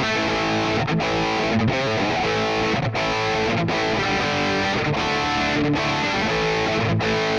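Electric guitar played through a Mooer Micro PreAmp 012 Fried-Mien, a preamp modelled on a Friedman BE-100 amp, on its Channel B with the cabinet simulation on, giving a distorted tone. The playing is steady, with short breaks between phrases about once a second.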